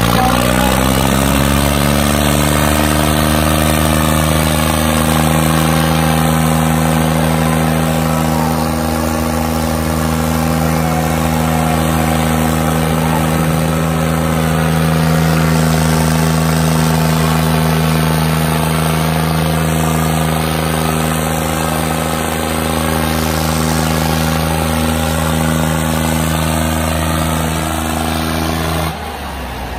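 Tractor diesel engines, a Ford 3600 up close, revving up over the first couple of seconds and then held at steady high revs under heavy pulling load in a tractor tug-of-war. The engine sound drops away abruptly near the end.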